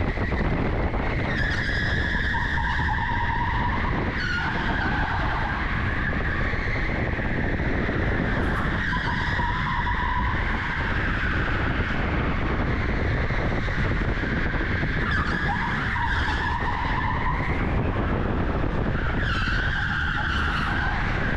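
Electric go-kart lapping a smooth indoor track, heard on board: steady running and tyre noise, with the tyres squealing through corners in four stretches.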